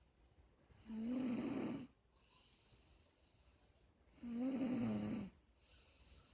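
Snoring: two snores about three seconds apart, each lasting about a second, with a wavering pitch.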